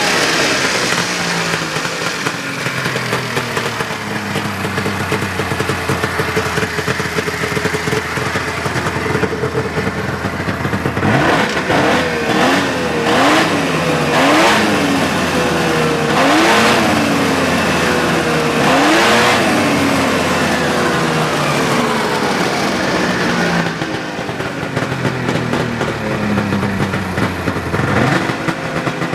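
1999 Arctic Cat ZRT 800 snowmobile's three-cylinder two-stroke engine running loud through an aftermarket exhaust can, with a string of quick throttle blips, the pitch rising and falling, in the middle stretch before it settles back to idle.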